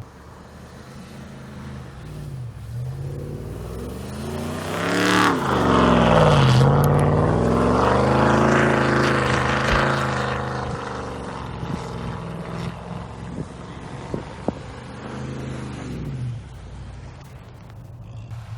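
Pickup truck engine running low, then revving hard in surges that swing up and down in pitch, loudest in the middle, before easing back down to a steady low run near the end. A couple of sharp knocks come late on.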